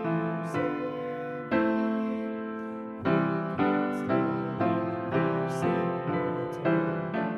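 Grand piano playing a slow piece in chords, a new chord or note struck every half second to a second and each left to ring and fade.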